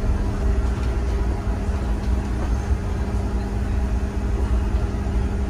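Double-decker bus heard from inside its upper deck while driving: a steady low engine and road rumble with an even hum over it.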